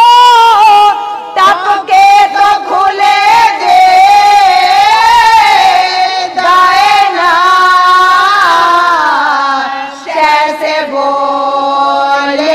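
A woman's voice reciting a marsiya, the Urdu elegy, in long drawn-out sung phrases whose pitch bends and wavers, with short breaks for breath about a second and a half in, about six seconds in and about ten seconds in.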